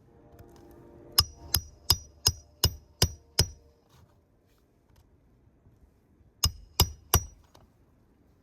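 Hammer driving roofing nails into a new asphalt shingle: seven quick strikes with a short metallic ring, about three a second, then after a pause three more.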